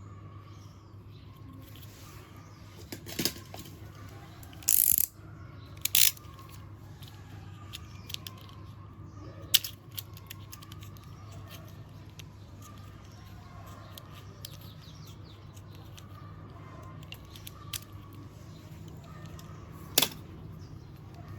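Scattered sharp clicks and knocks of small hard objects being handled, the loudest about 3, 5, 6, 9 and 20 seconds in, over a steady low hum.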